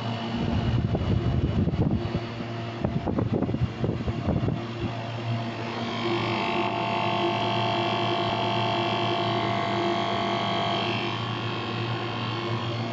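Water chiller machinery running with a steady mechanical hum. Irregular low rumbling comes through in the first five seconds or so. A higher whine joins about six seconds in and fades out around eleven seconds.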